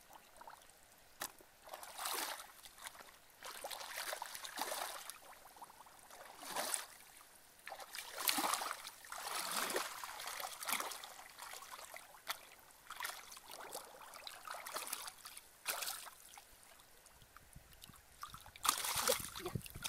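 Shallow muddy water sloshing and splashing in irregular bursts as a person wades through it and churns it with the hands.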